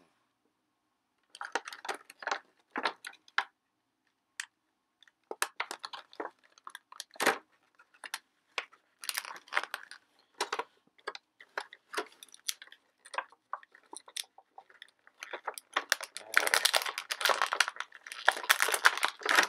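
Clear plastic toy packaging crinkling and crackling in the hands as a figure's pieces are worked out of it, in short irregular bursts. The bursts start about a second in and grow denser and louder over the last few seconds.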